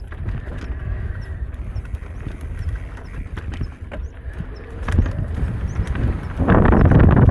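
Mountain bike rattling over rough trail: a steady low rumble with many sharp knocks and clatters. A louder rushing noise comes in near the end.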